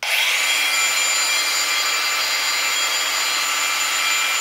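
Hikoki G3613DE cordless angle grinder's 36-volt brushless motor switched on with no disc fitted. It spins up within about half a second and then runs steadily at no load with a high whine.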